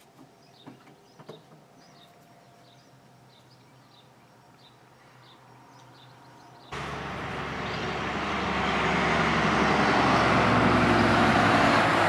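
Faint bird chirps over quiet outdoor air, then suddenly a loud tractor-trailer passing on the road, its engine and tyre noise building over a few seconds and peaking near the end.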